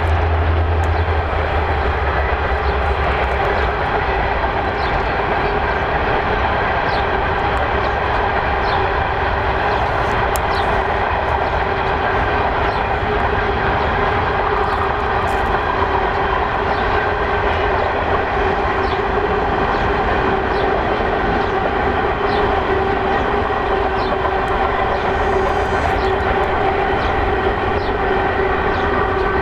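Freight train rolling past, running steadily throughout, its wheels clicking faintly over the rail joints about once a second.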